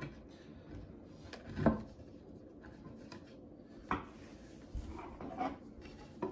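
Knocks and scrapes from handling flat-pack desk panels and hardware while screws are lined up and started. There are a few sharp knocks, the loudest about a second and a half in, over quiet rubbing.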